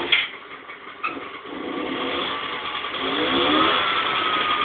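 Vespa 50 R's 49 cc two-stroke single-cylinder engine firing up after more than 20 years unused. It catches with a sudden burst, sags for about a second, then picks up and runs steadily as the revs slowly climb.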